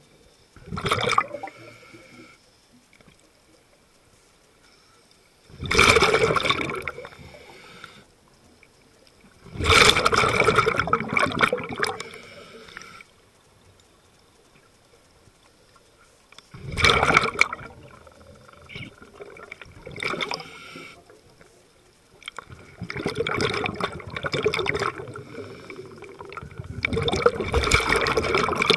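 Scuba diver's exhaled bubbles rushing out of a regulator underwater, in about six separate bursts several seconds apart, with much quieter stretches between breaths.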